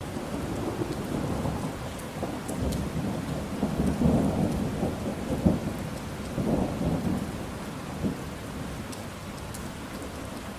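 Steady rain with rolling thunder: low rumbles swell and fade in waves, loudest a little past the middle, with a sharp crack just before it. Scattered raindrop ticks run over the steady patter of the rain.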